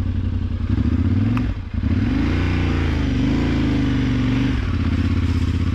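Yamaha Ténéré 700 World Raid's parallel-twin engine pulling away on a dirt track: the revs climb about a second in, dip briefly, rise again, then drop back to a lower, steady pace near the end.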